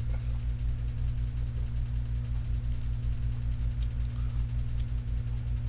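Steady low mechanical hum of a running machine, with a fast, even throb underneath.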